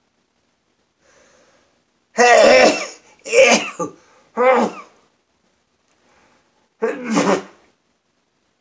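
A man sneezing four times in a fit, loud voiced sneezes about a second apart with a longer pause before the last, after a faint intake of breath about a second in. The fit was set off by scratching his upper lip.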